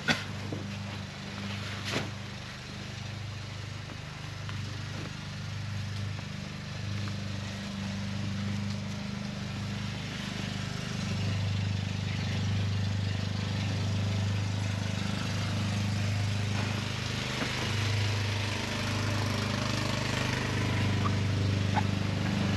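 A motor running steadily in the background, a low hum that grows slightly louder. Over it comes the rustle of tent fabric being handled, with a single short knock about two seconds in.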